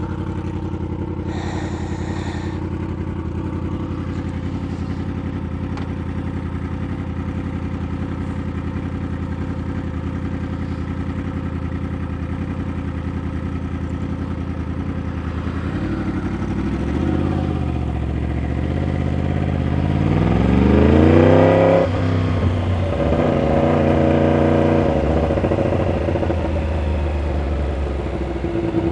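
Sport motorcycle engine idling steadily. About twenty seconds in it revs up in first gear as the bike pulls away, the pitch rising then dropping off, and it then runs on at light throttle.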